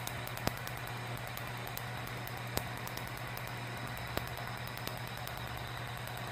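Tattoo-removal laser firing: a rapid run of faint sharp clicks from the pulses hitting the skin, with a few louder snaps, over the laser unit's steady low hum.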